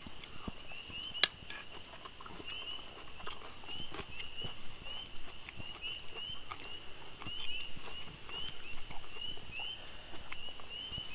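A night chorus of frogs: short rising peeps, over and over, several a second. Now and then a fork clicks and scrapes on a metal pan, sharpest about a second in.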